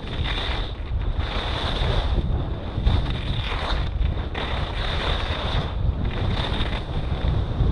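Wind buffeting an action camera's microphone during a fast ski descent, with the hiss of skis scraping over packed snow surging about every second and a half as the skier turns.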